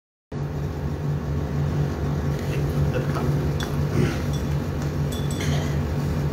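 Steady low machine hum that starts suddenly about a third of a second in, with a few faint light ticks over it.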